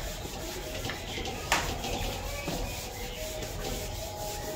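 Writing on a board: rubbing, scratching strokes with a sharp tap about a second and a half in.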